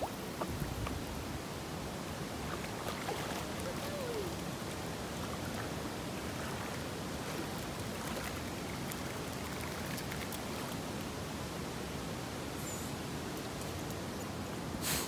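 Shallow creek water running steadily over rock, with a few light splashes from a dog wading through it. Near the end there is a brief loud rustle right at the microphone.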